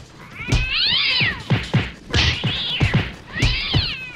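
Three drawn-out yowling cries, each rising then falling in pitch, over a quick run of low thumps.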